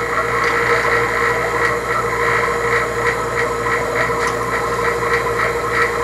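Electric HVAC vacuum pump running steadily, pulling a vacuum on a mason-jar chamber that draws brake fluid from an opened caliper bleeder screw.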